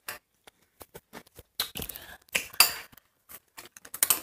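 Irregular clicks and rustling handling noise, with light clinks of a metal spoon in a bowl; the loudest rustles come about halfway through.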